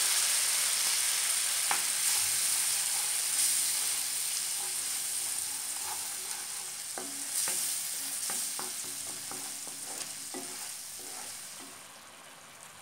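Onion-ginger-garlic masala sizzling in oil in a frying pan with water just added for the gravy, stirred with a wooden spatula that scrapes and taps the pan several times. The sizzle slowly fades and drops away near the end.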